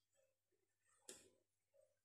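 Near-silent kitchen with one short metallic knock about a second in, a metal ladle striking the wok as it scoops up sauce.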